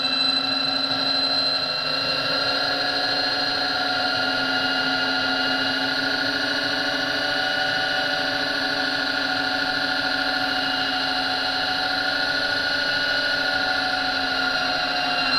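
Small electric motor running with a steady whine as it drives the RF-31 mill/drill table slowly along its X axis.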